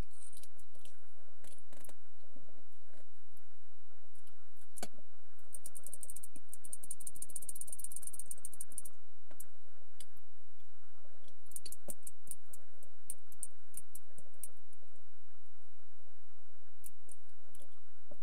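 Small sharp clicks and handling noises from work on a clock radio, with a few seconds of fast, dense clicking near the middle.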